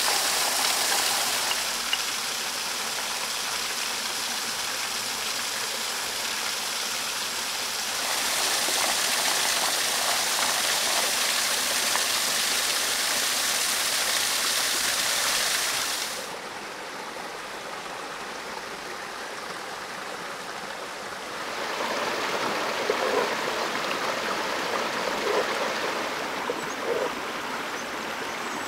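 A stream running: a steady rush of water whose level steps up and down a few times. A few soft knocks come near the end.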